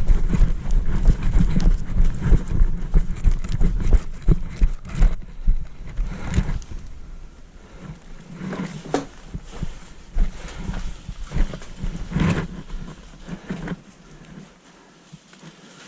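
Quick footsteps and gear jostling against a body-worn camera, dense at first and thinning to scattered single knocks after about five seconds.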